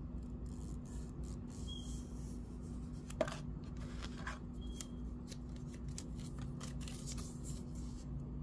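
Paper wrist-sizing tape crinkling and rustling as it is unfolded and handled, in a run of irregular crisp ticks with one sharper click about three seconds in, over a steady low hum.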